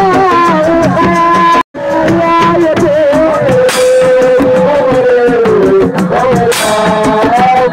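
Live assiko band music: a wavering, melodic lead line over a fast, steady drum rhythm. The sound cuts out completely for a split second about two seconds in, then resumes.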